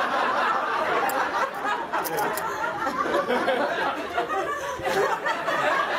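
Audience laughing together, steadily.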